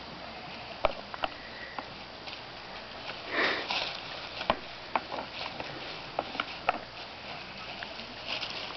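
Two Angora goat bucks fighting: sharp knocks of horn on horn, several times, with hooves scuffling in dry leaves, and a short rushing noise about three and a half seconds in.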